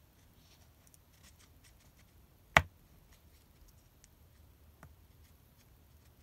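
Faint handling sounds of a marker and small paper strips on a cutting mat: light rustles and small clicks, with one sharp click about two and a half seconds in and a softer one near five seconds.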